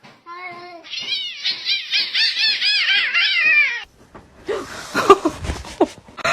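A cat calling in a rapid, high-pitched string of short rising-and-falling mews, about four a second, which cuts off abruptly. Then come rustling and knocks, with one sharp thump about five seconds in.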